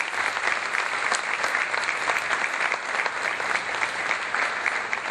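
Large audience applauding: many hands clapping at once in a dense, steady patter.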